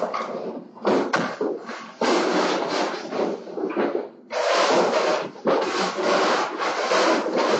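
A broom scrubbing a tiled floor in a series of rasping strokes, each about a second long.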